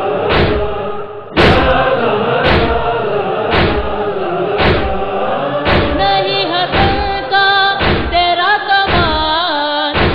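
Urdu noha, a Shia mourning chant: voices chanting in unison over a heavy thud that falls about once a second. From about six seconds in, a solo voice sings ornamented, wavering lines over the beat.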